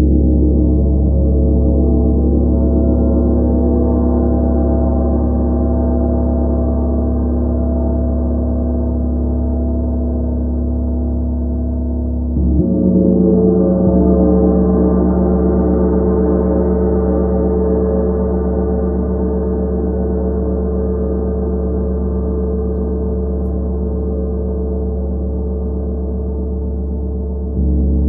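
A 32-inch gong rubbed and struck with soft felt mallets, giving a continuous wash of deep, layered tones with a long sustain. The tone shifts and swells about twelve seconds in, and again near the end.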